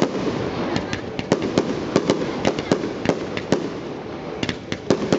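Fireworks display: aerial shells and comets going off in sharp, irregular bangs and cracks, several a second at times, over a steady background din.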